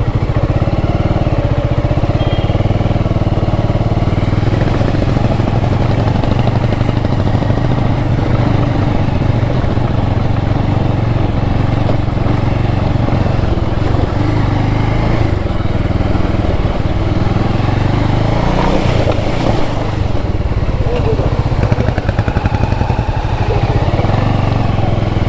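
Motorcycle engine running steadily as the bike is ridden along a muddy, rutted dirt track, the engine note changing briefly near the end.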